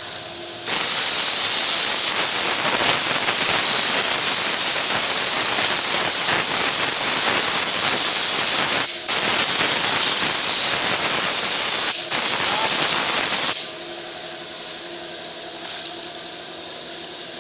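Jet of water spraying with a loud steady hiss. It starts about a second in, cuts out briefly twice, and stops shortly before the end.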